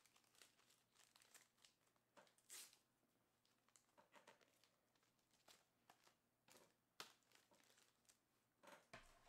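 Near silence, with faint scattered clicks and brief rustles; the loudest rustle comes about two and a half seconds in.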